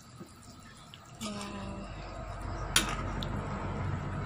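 Pan of chicken tinola broth at a rolling boil, bubbling, louder from about a second in. A sharp metallic clink against the pan comes near three quarters of the way through, then a lighter one.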